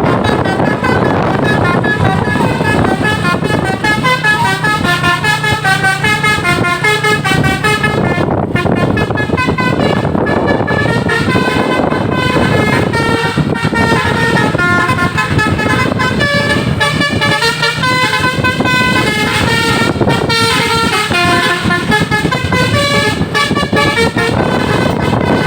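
Bus's multi-tone telolet horn, Basuri type, playing a long unbroken run of notes, several pitches at once, stepping rapidly up and down like a tune. Steady road and engine rumble runs underneath.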